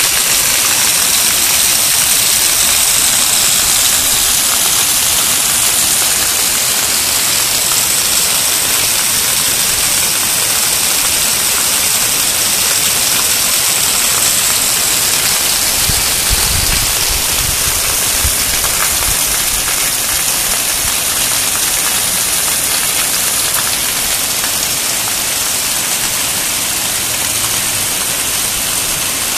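Heavy rain pouring down in a steady, loud hiss, with water running off a roof edge. A low rumble comes in for a few seconds a little past the middle.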